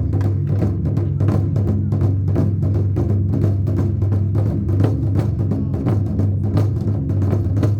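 Fast, unbroken Japanese taiko drumming, stroke after stroke at an even level, over a steady low hum.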